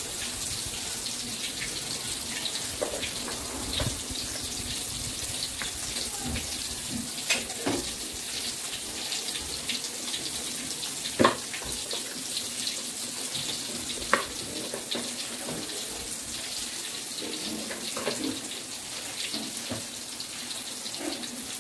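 Tofu frying in oil in an aluminium wok, a steady high sizzle, with a few sharp clinks of a ladle against the pot and bowl as greens go into boiling water.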